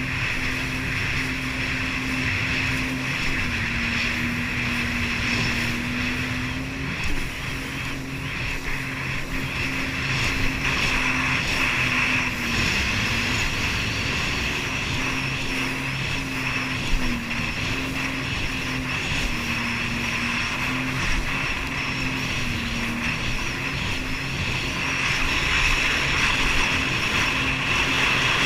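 Jet ski engine running at a steady cruising speed, its pitch dipping briefly now and then as the throttle eases, with a constant hiss of wind and spray over it.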